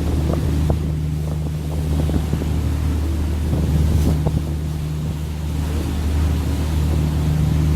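Engine of a Seine sightseeing cruise boat running with a steady low drone, with wind noise on the microphone.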